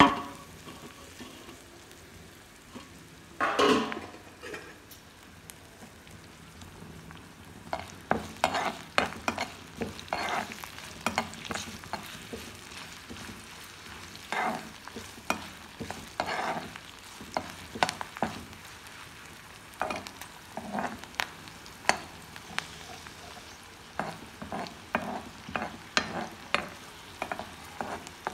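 Chopped onions frying in hot oil in a wok, stirred with a steel spoon. Under a steady sizzle, the spoon scrapes and clicks against the pan in quick clusters of strokes from about eight seconds in.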